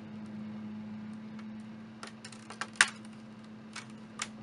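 Plastic snap-fit clips of a Samsung laptop's upper screen frame clicking as the piece is pressed back into place: a run of sharp clicks from about two seconds in, the loudest just before three seconds, over a steady low hum.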